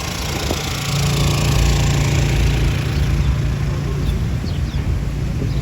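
City street traffic, with a vehicle engine running close by as a steady low hum from about a second in.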